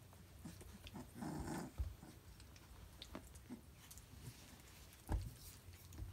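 Three-week-old Briard puppies stirring together: a short puppy vocal sound about a second in, small scuffles and ticks of the puppies moving, and a sharp thump about five seconds in.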